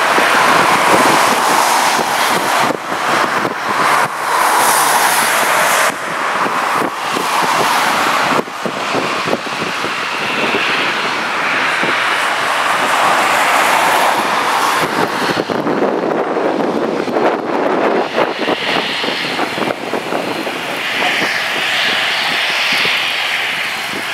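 Propeller aircraft engines running, swelling and fading in loudness over a constant noisy rush.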